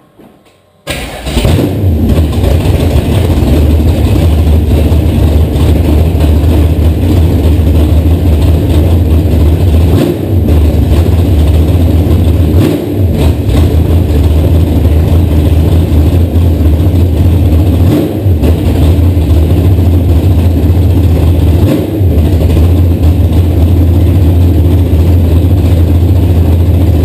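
Carbureted LQ9 6.0 L V8, fitted with ported 243 heads, a custom-grind cam and long-tube headers, fires about a second in and then runs loud and steady, dipping briefly a few times. It is running after a heads-and-cam swap.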